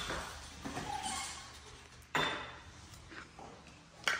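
Light clinks and knocks of hard objects, the loudest a sudden knock about two seconds in that rings out briefly.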